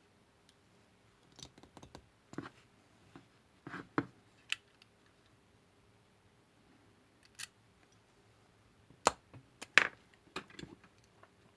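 Scattered clicks and taps of hand tools working at a chainsaw oil tank cap, prying out its press-fit breather check valve; the sharpest clicks come about nine and ten seconds in.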